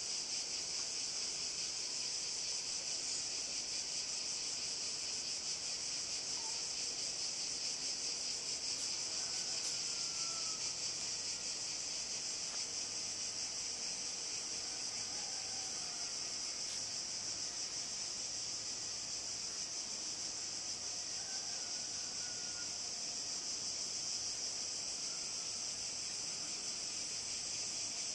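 Dense chorus of insects chirring on warm evening air: a continuous high-pitched drone that never pauses. A few faint short whistled notes come through now and then.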